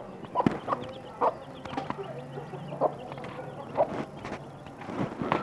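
Hen clucking in short, sharp calls about once a second, with her chicks peeping faintly and continuously.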